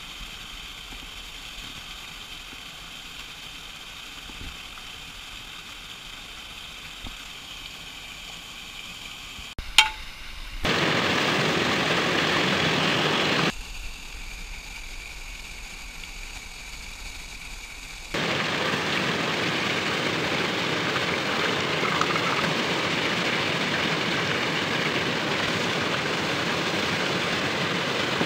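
Steady rush of a small waterfall, with a sharp click just before ten seconds in. Twice a loud, even hiss cuts in, briefly about eleven seconds in and then from about eighteen seconds on; the longer one is oil sizzling in a frying pan on a portable gas stove.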